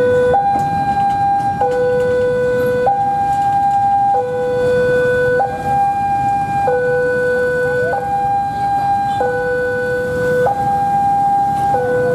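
Railway level-crossing warning alarm sounding its two-tone electronic signal, switching between a higher and a lower tone about every second and a quarter, over steady street and traffic noise.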